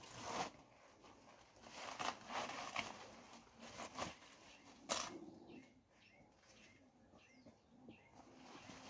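A machete chopping at a banana plant's stem, with rustling of dry banana leaves: several sharp strokes in the first five seconds, the loudest about five seconds in. Then faint bird chirps.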